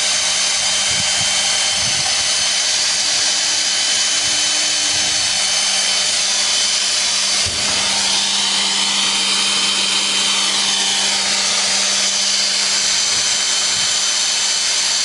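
Cordless drill running steadily at speed, turning a Mannesmann 446 drill-driven water pump as it pumps water through its hoses. There is a brief drop in the sound about halfway through.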